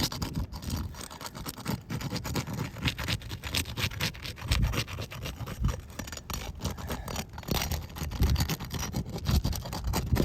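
Asphalt roof shingles being pried up and lifted: a continuous run of scraping and crackling with short clicks, and occasional low thumps. The shingles are weathered and wind-damaged, shedding granules as they are worked.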